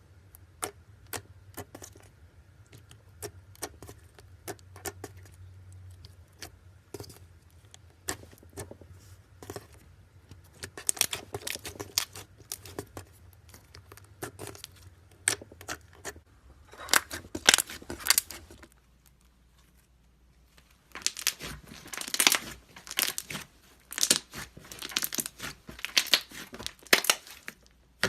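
Slime being squished, stretched and poked by hand: sticky clicks, pops and crackles. They are sparse at first, then come in dense flurries, with a short pause about two thirds of the way through.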